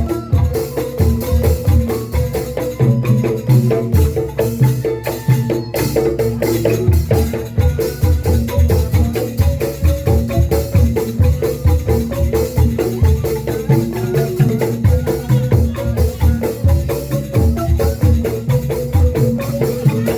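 Percussion-led music: pitched percussion repeating notes over fast, steady drum beats.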